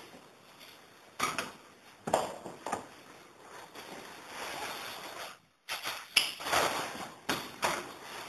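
Irregular scuffs, knocks and rustling of people moving about close by, with no clear voice.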